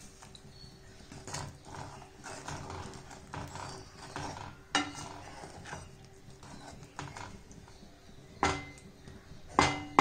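A spatula stirring diced raw mango in a spiced liquid in a metal pan, scraping and stirring unevenly, with three sharp knocks against the pan that make it ring, about five seconds in and twice near the end, the last the loudest.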